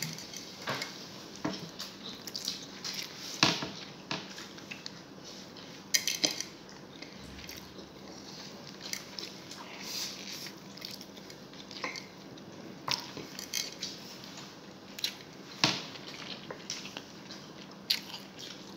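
Close-up eating sounds as spicy chicken adobo and rice are eaten by hand: chewing and mouth smacking, with scattered short clicks and taps of fingers and food against the plate.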